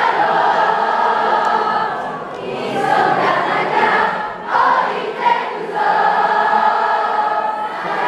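A large concert crowd chanting together in unison, many voices at once, in repeated phrases with short breaks.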